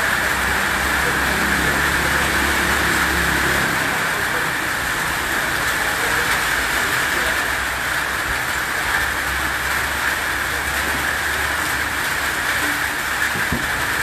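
Rain falling on a corrugated metal roof, a steady hiss. A low hum runs underneath at the start and again for a few seconds in the middle.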